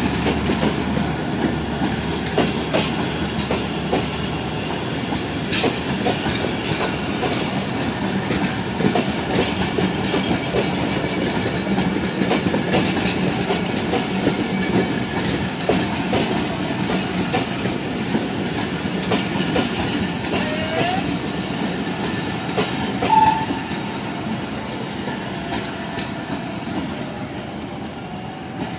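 Passenger coaches of the 14 Down Awam Express rolling past, wheels clicking over the rail joints in a steady clatter. About 23 seconds in a brief high tone sounds, and the rolling eases off a little near the end.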